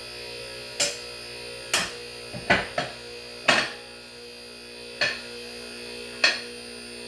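QuickJack's electric hydraulic pump running with a steady buzzing hum, with seven sharp metallic clicks at uneven spacing as the lift's safety latches drop into place while it rises.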